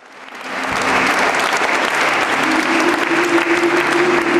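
A crowd applauding, fading in over the first second into steady clapping, with a steady low tone joining about halfway through.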